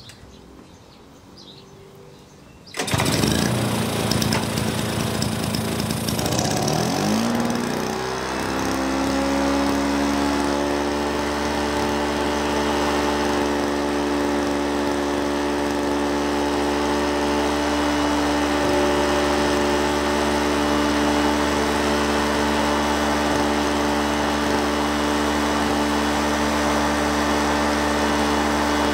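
Suzuki engine on a Rover M120X rotary lawnmower, lukewarm and freshly fitted with a cleaned carburettor and new spark plug, starts suddenly about three seconds in. It runs unevenly for a few seconds, picks up speed around seven seconds, then settles into a steady, even run.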